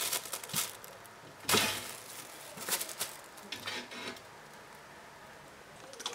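A kitten batting at a thin plastic bag, which rustles and crinkles in irregular bursts. The loudest burst comes about a second and a half in. It goes quiet for a couple of seconds before another burst at the end.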